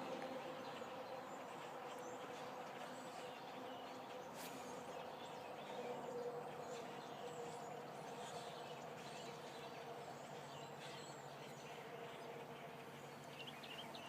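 A huge migrating flock of tiny birds passing overhead: a steady mass of thin chirps that almost sounds like rain.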